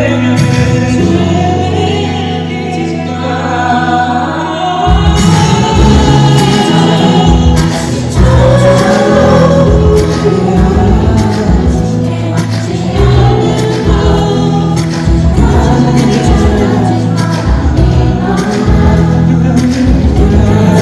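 Live pop song played loud through a concert sound system: singing over held chords, with a beat coming in about five seconds in.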